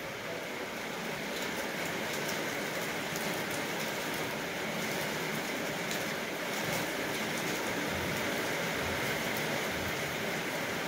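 Paper wrapping crinkling and rustling in the hands, with light crackles throughout, over a steady background hiss.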